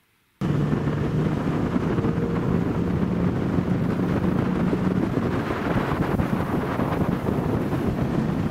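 Boat's outboard motor running steadily as the boat travels, with wind buffeting the microphone. It comes in suddenly just under half a second in.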